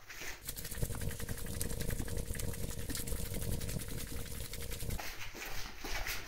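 A small motor-driven machine running with a rapid, even clatter of many ticks a second over a steady hum, stopping about five seconds in.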